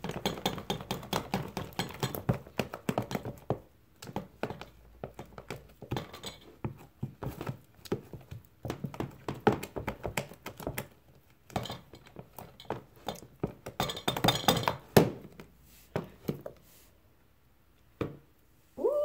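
A spatula stirring fluffy slime in a plastic tub: repeated knocks, taps and scrapes against the tub's plastic sides in busy runs with short pauses, as colour is mixed in until no white streaks remain.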